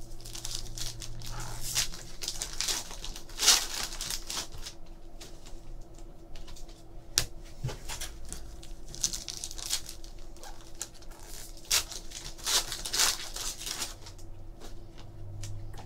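Foil trading-card pack wrapper being torn open and crinkled by hand, with cards handled on a table: irregular rustles and crackles broken by a few sharp clicks.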